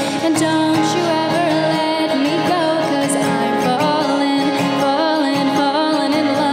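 A woman singing a sustained, wavering melody while strumming an acoustic guitar, performed live.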